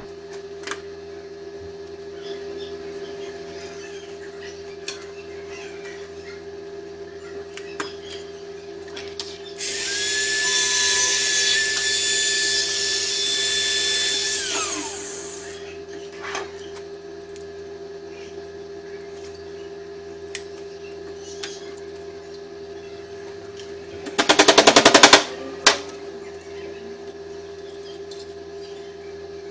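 A workshop power tool runs for about five seconds with a steady whine, then winds down in falling pitch as it is switched off. Near the end a rapid rattling burst lasts about a second. A steady hum is heard throughout.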